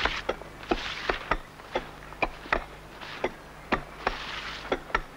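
Hand hewing of sandstone: iron tools striking the rock in sharp, irregular blows, about two to three a second, with short stretches of hiss between them.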